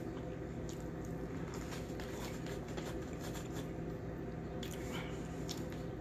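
A person chewing food, with soft mouth sounds and faint scattered clicks and scrapes of a fork against a paper plate, over a steady low hum.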